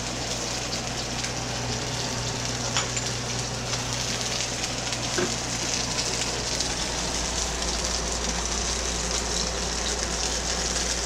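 Whole trout frying in hot vegetable oil in a pan: a steady sizzle with a few faint crackles, over a steady low hum.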